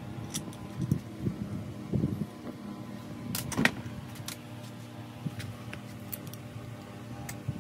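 Scattered knocks and clinks of metal parts as a heavy 24 V starter motor is handled and reassembled, the sharpest one about three and a half seconds in, over a steady background hum.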